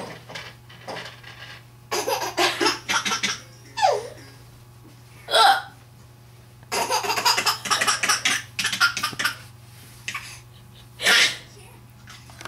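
A woman hiccuping: single short, sharp hics a few seconds apart. Two stretches of rapid laughter at the hiccups fall between them.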